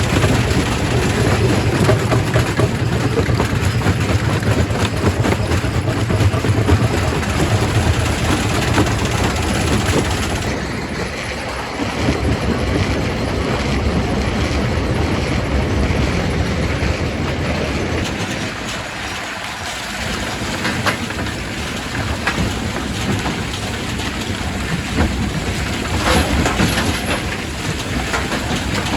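Quarry primary rock crusher running, stone clattering and grinding through it over a steady low machine drone. The drone drops away about a third of the way in, the clatter carries on, and the sound eases briefly about two-thirds of the way through.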